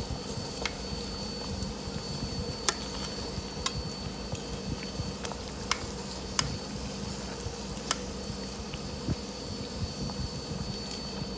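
Stockpot of broth boiling with a whole chicken in it: a steady bubbling hiss, with sharp clicks now and then.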